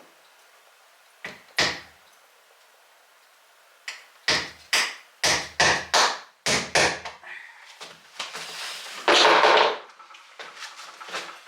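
Sharp knocks and taps on a door while door hardware is being fitted: two about a second in, then a quick run of about eight, followed near the end by a short, harsher burst of noise and a few lighter clicks.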